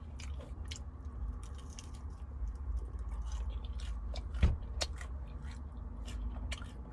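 Close-up chewing of a fried chicken strip, with irregular small mouth clicks and smacks, one a little louder about four and a half seconds in, over a steady low hum.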